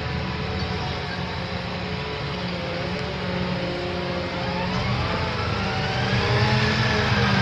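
John Deere 8370R tractor's 9.0-litre six-cylinder diesel running steadily; a little past halfway its engine speed rises smoothly over about two seconds and holds at a higher, louder pitch.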